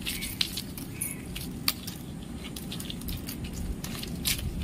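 Coconut palm leaflets being bent, pulled and tucked under one another by hand in a weave, giving an irregular run of crisp rustles, clicks and scratches over a low steady background rumble.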